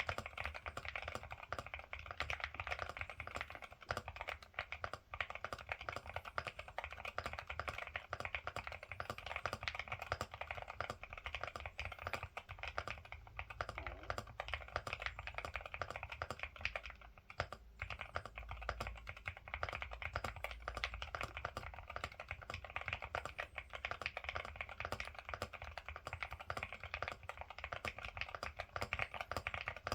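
Continuous fast typing on a Ciddo V65 V2 mechanical keyboard with Akko Rosewood switches: a dense stream of key clacks with a brief pause a little past halfway.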